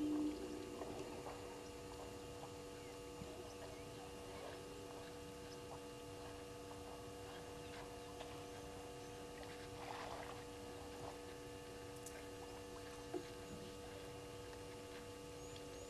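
Steady electrical hum of several pitches picked up by the waterhole camera's microphone. Faint scattered chirps and ticks come through it, and a brief soft rush of water sounds about ten seconds in.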